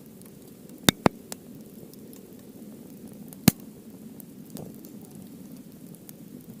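Softwood and hardwood burning in an open wood fire: a low steady flame rush with sharp crackles and pops, two close together about a second in and a loud single pop about halfway through.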